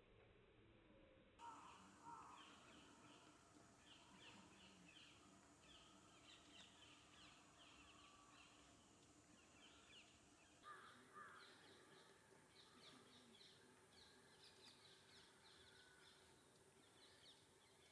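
Near silence with faint bird calls in the background: many short, rapid chirps, and a couple of slightly louder calls about a second and a half in and again about ten seconds in.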